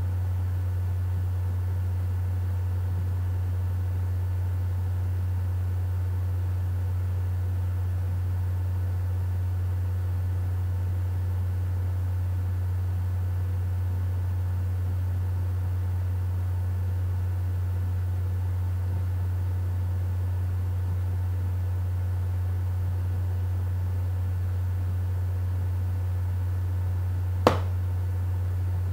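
Steady low hum with a faint hiss, broken once near the end by a single sharp click.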